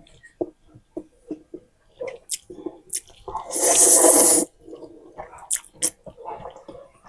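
Close-up mouth sounds of eating spicy instant noodles: wet chewing and smacking clicks, with one loud slurp lasting about a second near the middle.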